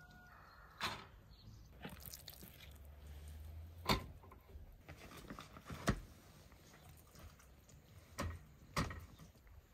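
Handling noises from laying split carp onto a wire grill grate: a handful of sharp clicks and knocks, spaced irregularly a second or two apart, as the fish and the metal grate meet the wooden board.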